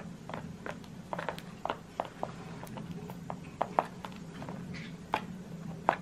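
Cockatiels rummaging and pecking in a plastic foraging tray of shredded paper bedding with small wooden pieces: irregular sharp clicks and taps with light rustling, several louder knocks spread through.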